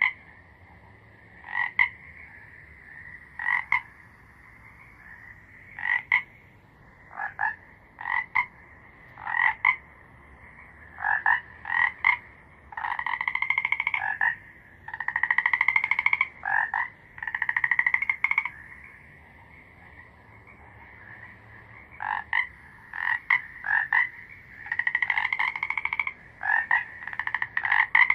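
Frogs croaking: short single croaks every second or two, with longer pulsed trills lasting one to two seconds, over a faint steady high hum.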